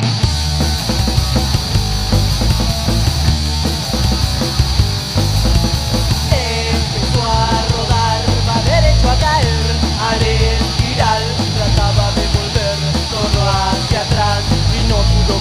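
Punk rock band playing loud: drums, bass and distorted guitars, with a melodic lead line that slides between notes coming in about six seconds in.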